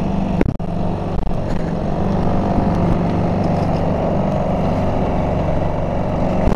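Low, steady running of a passing Red Funnel car ferry's engines, heard over a continuous rush of wind and water.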